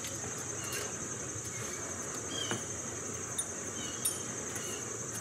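Steady high-pitched chirring of insects, with a few faint clicks from a tape measure being pulled out and handled, the clearest about four seconds in.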